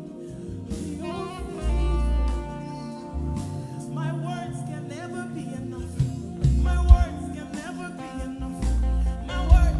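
Live gospel worship music: singing over a band with sustained deep bass notes. Two heavy low hits, about seven seconds in and near the end, are the loudest moments.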